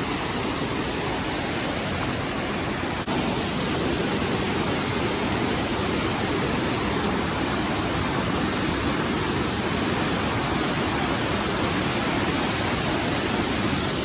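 Large waterfall pouring steadily, a dense, even rush of falling water, its flow swollen by rain.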